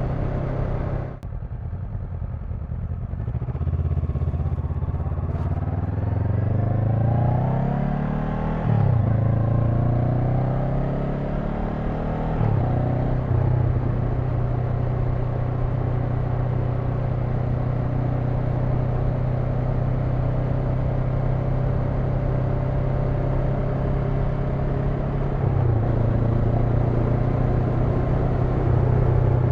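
Honda NX500's parallel-twin engine pulling away after a brief lift of the throttle, rising in pitch through two upshifts about 9 and 12 seconds in, then cruising at a steady engine speed with small throttle changes near the end.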